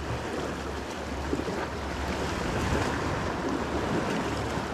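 Steady wash of wind and sea water, with a low hum underneath.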